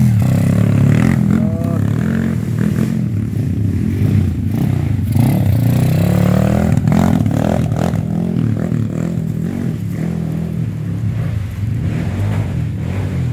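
Two dirt bikes climbing past one after the other on a rough trail, their engines revving up and down as the riders work the throttle. The engine sound eases off toward the end.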